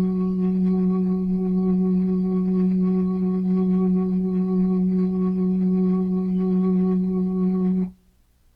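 Tornado siren sound effect: a steady low tone held at one unchanging pitch, with overtones, which cuts off suddenly near the end.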